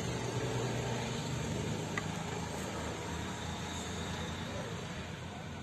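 Steady outdoor background noise with a low hum underneath.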